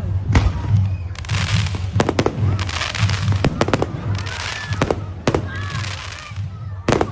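Fireworks going off: sharp bangs mixed with bursts of crackling hiss that come roughly every second and a half, over a steady low hum.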